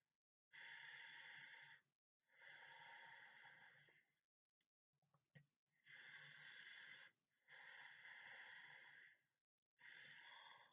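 A sleeping person's quiet, heavy, regular breathing: five long, noisy breaths of about a second and a half each, separated by short pauses, with a few faint clicks in a longer pause near the middle.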